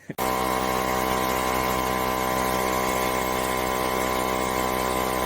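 A machine motor running at a constant speed with a steady whine. It switches on abruptly just after the start and holds an unchanging pitch.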